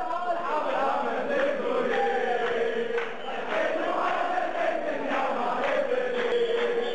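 A large crowd of football supporters chanting a song in unison, many voices holding long sung notes together.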